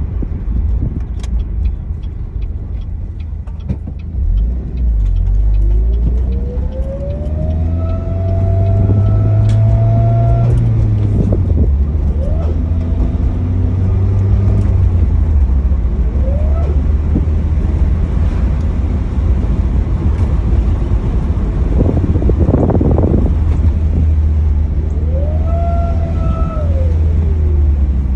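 2007 Pontiac Solstice GXP's 2.0-litre turbocharged four-cylinder running under a low rumble, with a whine that climbs in pitch as the car accelerates and drops back as it lets off, twice. The whine is still there with both drive belts freshly replaced. A brief rush of noise comes about 22 seconds in.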